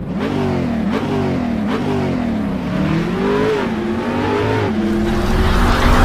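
A car engine revving hard, its pitch climbing and dropping over and over under a hiss of noise, growing louder near the end.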